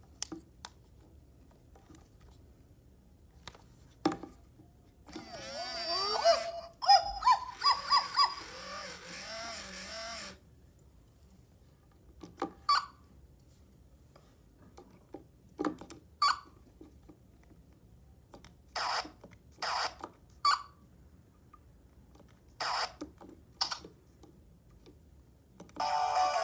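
Hasbro I-Dog Pup robot toy playing sound effects through its small speaker: a few seconds of warbling, rising-and-falling electronic tones, then a string of short separate chirps, with light clicks of the plastic toy being handled. Music starts from the toy right at the end.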